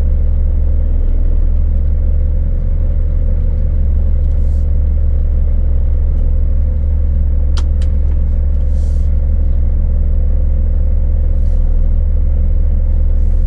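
Scania S500 truck's V8 diesel engine running steadily at low revs, a heavy low drone heard from inside the cab.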